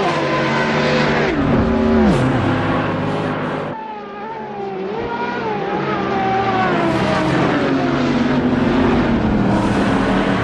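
Added racing-car engine sound effect. The engine note falls steeply over the first two seconds or so, dips briefly about four seconds in, then climbs and wavers as the engine pulls again.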